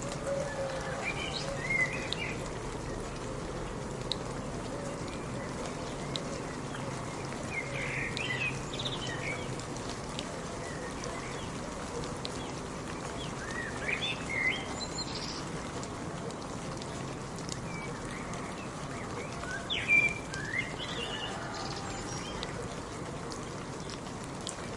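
Steady rain falling, with a bird calling in short chirping phrases four times, roughly every six seconds.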